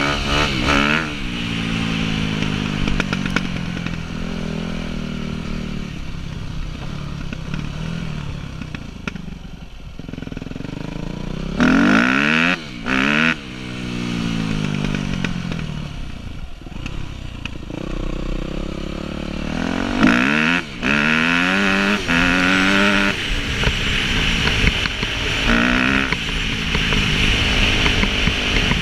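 Yamaha 250cc four-stroke motocross bike engine revving under way, its pitch repeatedly climbing as the throttle is opened and falling back when it is closed, with a lower, quieter stretch in the middle. It picks up cleanly on the freshly rejetted carburettor, with the bog gone.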